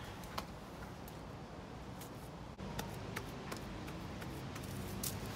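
Light scattered clicks and taps of gloved hands working a wet sand-and-cement coat over a concrete sculpture, over a steady low background rumble.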